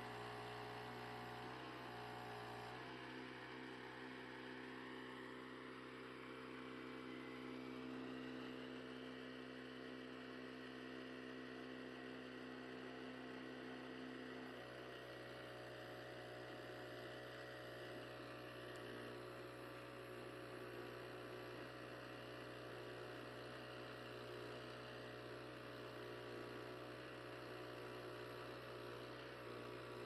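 The small gasoline engine of a Hudson Little Oscar band sawmill runs steadily and faintly as the blade is pushed through a red oak log. Its tone changes about three seconds in and again about halfway through.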